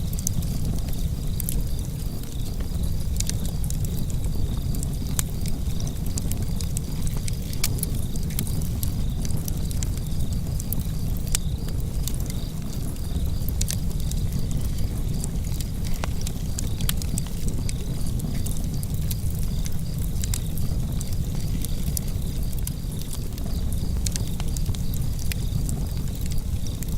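Fire burning in a fireplace: a steady low rumble of the flames with frequent sharp crackles and pops scattered irregularly throughout.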